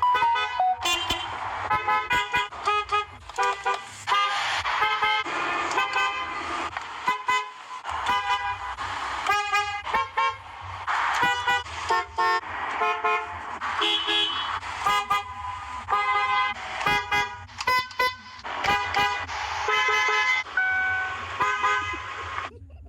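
Car horns sounding in many short blasts in quick succession, at several different pitches, with sharp clicks between some blasts.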